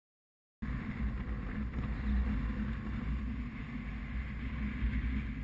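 After about half a second of silence, a motorcycle engine running, heard from the bike's onboard camera with wind noise on the microphone, a steady low rumble under a rush of air.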